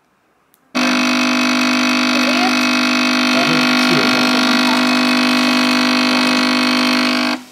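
Capsule espresso machine's pump buzzing loudly and steadily while it brews a shot into the cup. It starts abruptly about a second in and cuts off just before the end.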